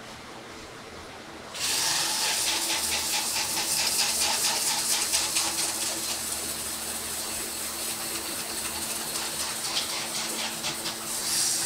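Cordless drill running with its attachment against a horse's hoof, starting suddenly about one and a half seconds in: a steady high hiss of abrasion over the motor's hum.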